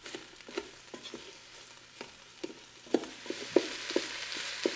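Wooden spoon knocking and scraping against the Ninja Foodi's inner cooking pot as ground beef and onion are broken up and stirred, over the sizzle of the meat sautéing in its own fat. The sizzle grows louder in the second half.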